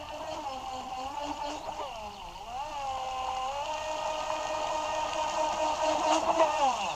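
Radio-controlled rescue boat's motor whining as it speeds across the water toward the stalled racing boat. The pitch dips and climbs with the throttle, holds high while growing louder as the boat closes in, then drops off near the end as it throttles back.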